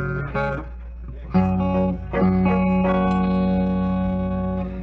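Amplified electric guitar tuning up: after a brief quieter gap, a low note is struck about a second in and held, then another is struck about two seconds in and held, over a steady low hum.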